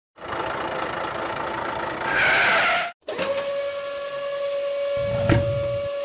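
Truck engine running, then, after a sudden cut about three seconds in, a steady high whine like a hydraulic lift as the toy garbage truck's side lift arm raises a wheelie bin. A low rumble and a single clack come in about five seconds in.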